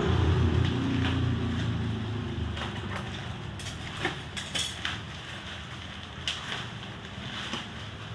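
A motor's low hum that slides down in pitch and fades over the first few seconds, then scattered sharp clicks and taps.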